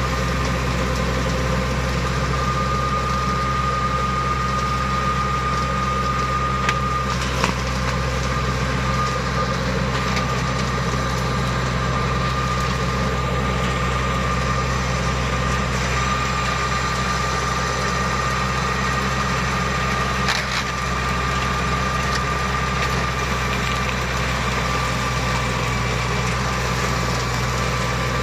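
Engine of a homemade flail mower built from a tracked snowblower, running steadily, with a steady high whine over the engine sound and a few sharp knocks.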